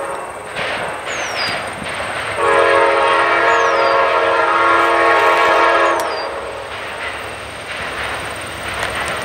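Amtrak GE Genesis P42 diesel locomotive's air horn sounding for a grade crossing as the train approaches: a blast cutting off just after the start, then one long chord of several notes from about two seconds in, held for about three and a half seconds. The train's rumble continues underneath.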